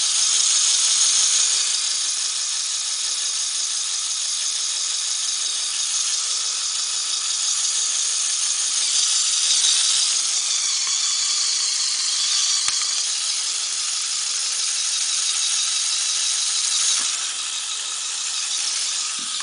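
Small Lego electric motor running continuously, driving a Technic four-wheel-drive gear train: a steady high whirring of motor and plastic gears, easing slightly near the end.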